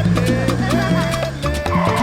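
Upbeat background music with a Latin, salsa-like feel: a bass line, a bright melody and a steady percussive beat.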